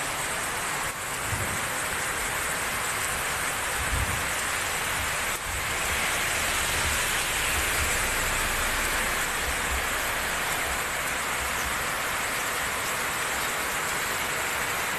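Heavy rain pouring steadily onto the road and roofs. A vehicle drives past on the wet road partway through, with a low rumble and a swell of tyre hiss.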